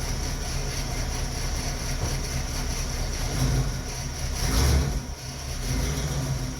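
Vehicle engine running with a steady low rumble that swells louder twice, briefly, in the middle.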